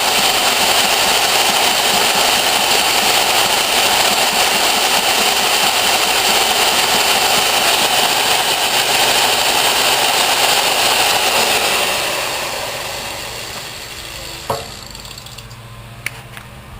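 A machine's motor running steadily, then switched off and winding down over about four seconds, with a single sharp click as it slows.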